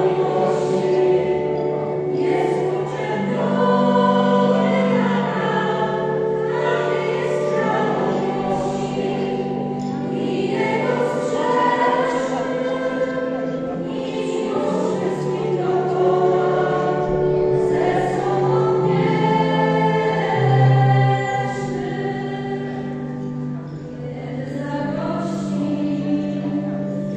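Small mixed choir of men and women singing in harmony, in phrases of long held notes.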